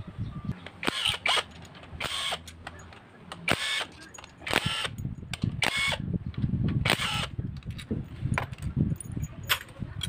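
Cordless drill-driver with a socket spinning out motorcycle engine case bolts, run in about seven short bursts.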